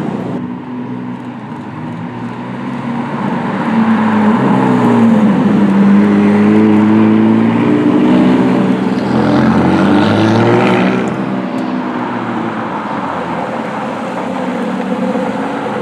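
Sports cars, a McLaren and then an Aston Martin DB11, driving slowly past one after another with their engines at low revs. The engine note swells and is loudest in the middle as one car passes close, with the pitch rising and falling, then eases off to a quieter, steadier engine sound.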